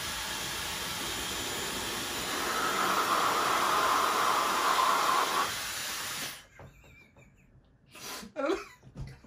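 Dyson Supersonic hair dryer running: a steady rush of blown air, louder for about three seconds in the middle while it is aimed into an open mouth, then switched off about six seconds in.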